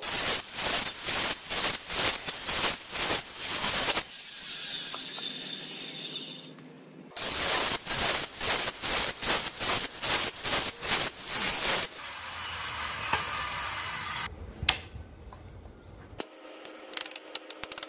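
Rhythmic back-and-forth strokes of a hand tool working wood, about three a second, in two spells with a quieter stretch between. There are a few quick ticks near the end.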